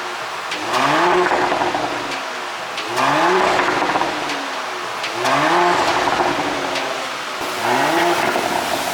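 Porsche Cayenne's turbocharged 3.0-litre V6 revved four times, each rev rising and falling back, with exhaust pops on the overrun from a pop-and-crackle ECU tune.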